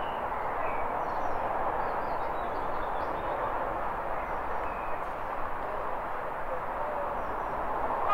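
Outdoor ambience: a steady, even background noise, with small birds chirping now and then, high and faint above it.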